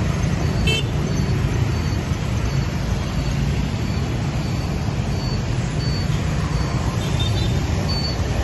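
Steady road-traffic noise from a stream of motor scooters passing close by, with a short horn toot about a second in. A faint high beep repeats about twice a second underneath.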